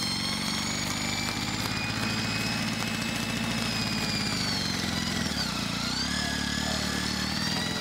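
Engine running steadily with a high whine above it; the engine note and whine sag briefly about five seconds in, then recover.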